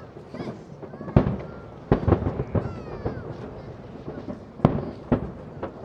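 Aerial firework shells bursting overhead in an irregular string of sharp booms with echoing tails. The loudest come about a second in and near the end, and faint whistling glides run between them.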